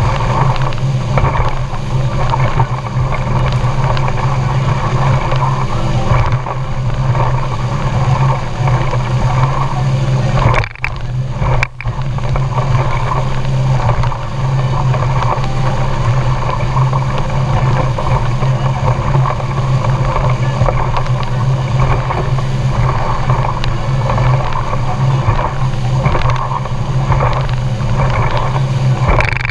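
Motorboat's outboard engine running steadily under way, a constant low hum mixed with wind and water noise. The sound cuts out briefly twice around the middle.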